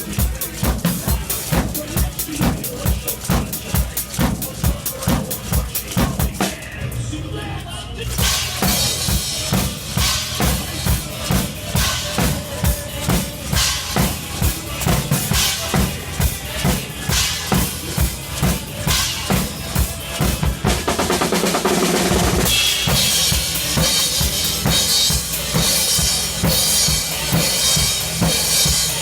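Robot drummer playing a real drum kit to a heavy metal track: rapid, steady kick and snare hits under cymbals. The drumming thins out briefly about seven seconds in, then returns, and near the end it is joined by a dense, continuous cymbal wash.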